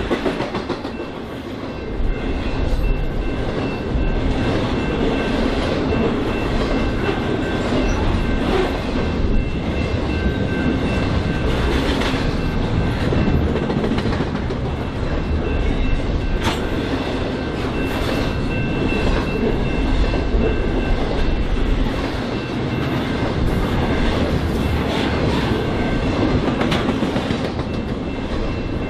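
BNSF freight train cars rolling past steadily: a continuous heavy rumble with wheels clacking over the rail joints.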